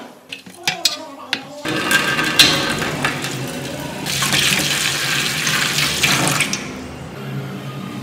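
A few light metal clicks, then water pouring and splashing into a plastic tray over a rusty kukri blade. The pouring starts suddenly about a second and a half in, grows stronger midway and stops about a second before the end.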